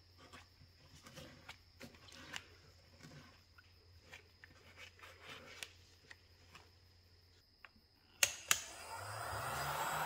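Faint scratching and ticking as debris is picked out of a hole in old wood, then two sharp clicks from a heat gun's switch near the end and the heat gun's fan starting up, a steady blowing noise that quickly swells.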